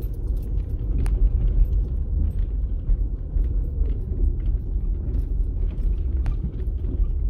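Car driven slowly over a rough dirt road, heard from inside the cabin: a steady low rumble of tyres and suspension on the uneven surface, with a few sharp clicks and rattles.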